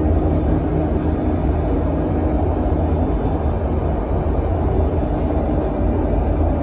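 Cabin noise inside a Solaris Urbino 18 electric articulated bus under way: a steady, loud low rumble from the running gear and road, with a few faint steady high tones over it.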